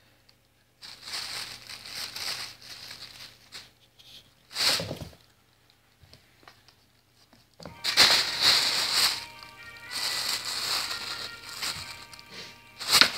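Thin plastic bag crinkling and rustling in irregular bursts as a kitten pounces on, burrows into and lies in it, with a louder stretch of rustling in the second half.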